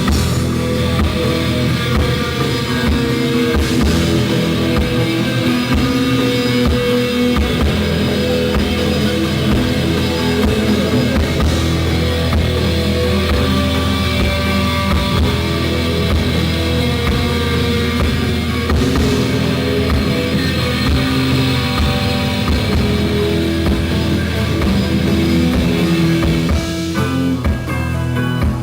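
Rock band playing live, loud and steady, with a drum kit and electric guitar.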